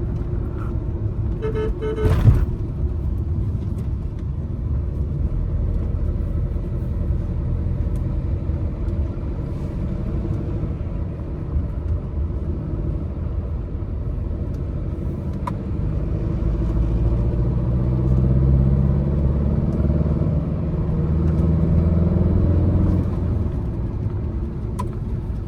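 Tata Nexon's 1.5-litre Revotorq turbo-diesel four-cylinder running on the move, with steady road rumble; the engine note rises as it pulls harder about two-thirds of the way through, then settles. A short knock about two seconds in.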